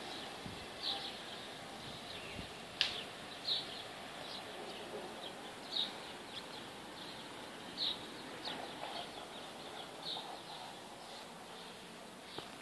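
Small birds chirping, short high chirps every second or two, with a single sharp click about three seconds in.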